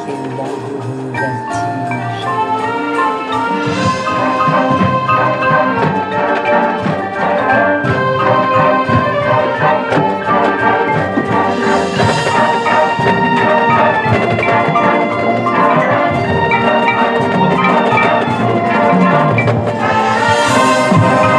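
High school marching band playing, with the front ensemble's mallet percussion (marimbas, glockenspiel) prominent over sustained brass. The music grows steadily louder through the passage.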